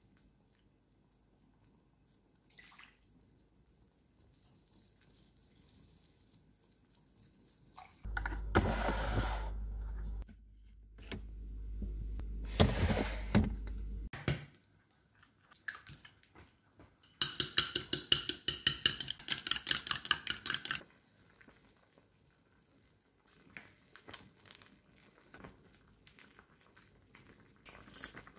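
Home kitchen handling sounds: utensils against an earthenware pot and dishes, a refrigerator being opened and rummaged through, and a few seconds of rapid clicking or rattling near the middle, with quieter knocks and clinks before and after.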